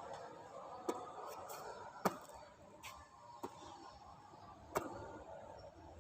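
Basketball being passed and hit: a series of short, sharp ball impacts, five or six of them, roughly one a second at uneven spacing.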